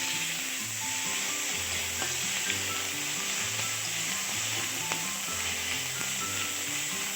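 Onion, ginger-garlic paste and chopped chilies sizzling steadily in hot oil in a pan as they fry, being stirred, with a few light taps of the spatula on the pan.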